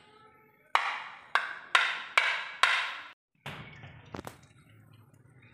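A metal spoon knocking against a ceramic plate five times in quick succession while mashing boiled potatoes, each knock ringing briefly. After a short break, a single quieter click.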